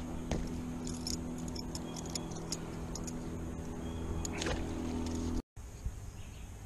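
Electric trolling motor humming steadily, with light metallic clicks and jingles of a spinnerbait and hooks being handled. The hum cuts off abruptly about five seconds in, leaving only faint clicks.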